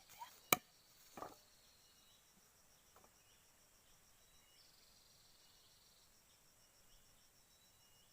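Faint, steady high-pitched chirring of crickets or other insects, with one sharp click about half a second in and a short rustle-like noise just after a second.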